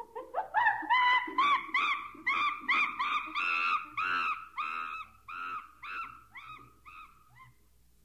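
An animal calling in a rapid series of about twenty short, arched hoots, roughly three a second. The calls are loudest in the first half and fade away near the end.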